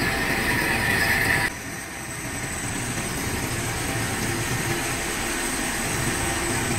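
Lathe running while a boring tool takes a final finishing cut inside a large metal ring, a steady machining noise with a high-pitched cutting tone. About a second and a half in, the tone stops abruptly and the sound drops to a quieter, steady machine run.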